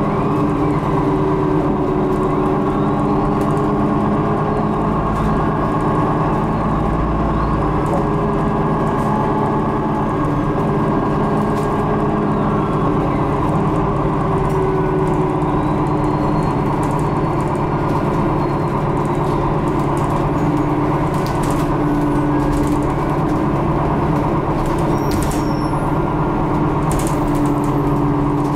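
Inside a moving city transit bus: the steady drone of the engine and drivetrain with road noise, and light rattles now and then.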